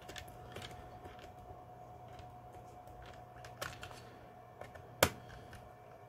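Small screwdriver turning a screw in a laptop's hard-drive bay: faint scattered clicks and scrapes of the tool on the screw and metal, with one sharp click about five seconds in, over a faint steady tone.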